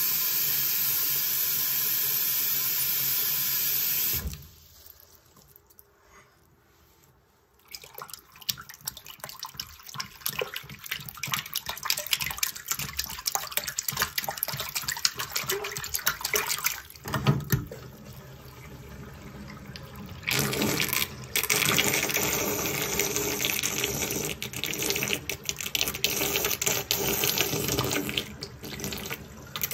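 Tap water running into a bathroom sink, shut off suddenly about four seconds in. After a short quiet spell, a hand sloshes and swirls the water, and later the sink drains through its pop-up drain in a swirling vortex, the water noise louder and busier.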